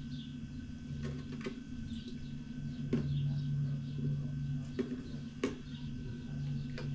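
A spoon knocking and scraping against a jar and a small bowl while pickled vegetables are scooped out, about six sharp clicks spread through, over a steady low hum.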